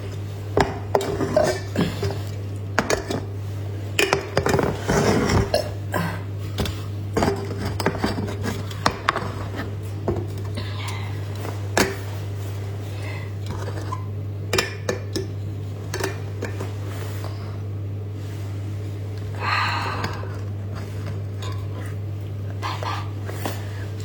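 Drink bottles clinking and knocking against each other and the table as they are gathered and handled, in irregular clusters of taps, over a steady low hum.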